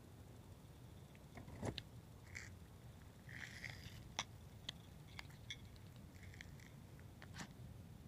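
Quiet outdoor ambience with faint clicks and rustles from a handheld camera being moved, and a few faint short animal calls, one cluster about two to four seconds in and another near six and a half seconds.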